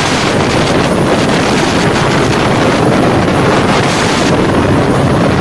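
Helicopter running on the ground with its main rotor turning: a loud, steady rush of turbine and rotor noise, with the rotor downwash buffeting the microphone.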